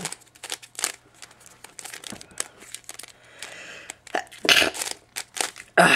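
Plastic pieces of a YJ Axis Cube clicking and scraping as its layers are twisted by hand, a run of quick irregular clicks with a louder rasp about four and a half seconds in.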